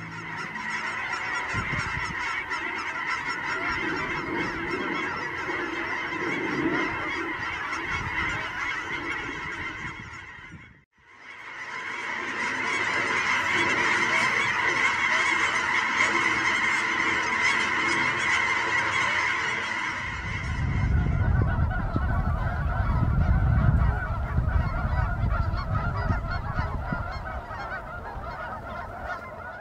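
A large flock of geese honking in a dense, continuous chorus, broken by a brief silence about a third of the way through before the chorus resumes. In the last third a low rushing noise comes in under the honking.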